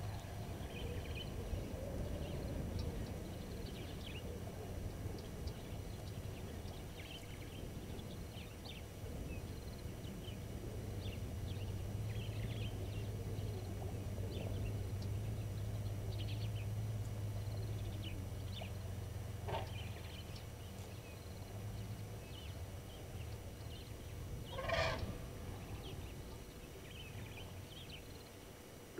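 Low steady hum of an open safari vehicle's engine as it moves slowly closer, with scattered bird chirps throughout and one brief, loud call near the end.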